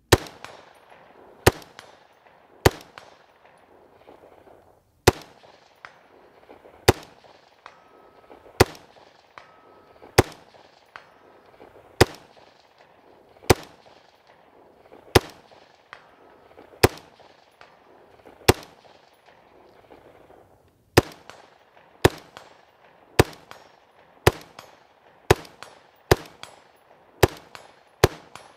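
LMT MARS-L 5.56 mm semi-automatic rifle firing about two dozen single shots, roughly one a second, with short pauses about 3 seconds and 19 seconds in.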